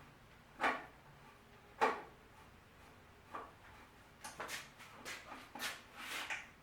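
Hand tools knocking and clicking against metal parts while screws are being undone: two sharp knocks about a second apart, a lighter one, then a quick run of small clicks and rattles near the end.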